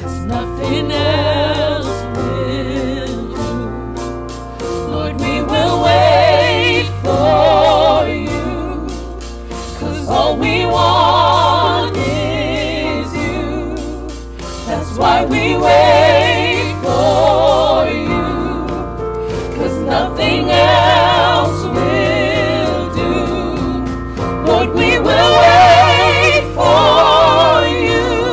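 Gospel worship song: several voices singing together with vibrato, in long sung phrases over drums, keyboard and bass guitar.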